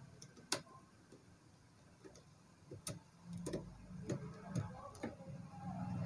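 Sharp, separate clicks and taps of plastic and metal parts of a three-phase starter's contactor being handled and pressed into place, about six in all, the loudest about half a second in. A low hum comes in after about three seconds and grows louder near the end.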